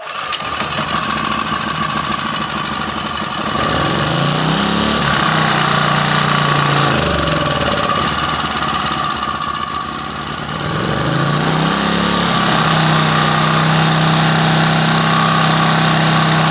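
Champion 1800-watt portable generator's small engine firing up on the pull and running on part choke. Its speed sags about ten seconds in, then picks back up and holds. It is struggling to pick up fuel.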